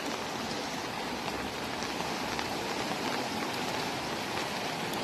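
Steady rush of floodwater streaming across paved ground, a continuous even wash of water noise.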